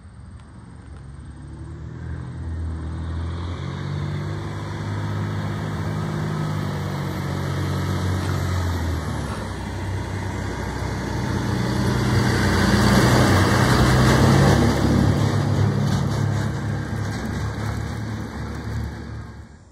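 Rear-loader garbage truck's engine running as the truck drives along the street, growing louder and loudest in the second half as it comes close, with a change in the engine note about halfway through.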